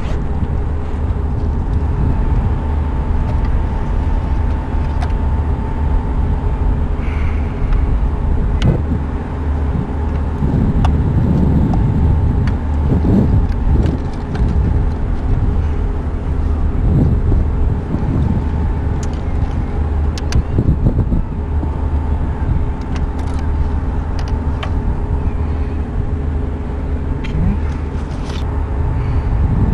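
A steady low rumble with a constant machinery hum running under it. Small clicks and rustles come and go as the radar unit and bag are handled, busiest around the middle.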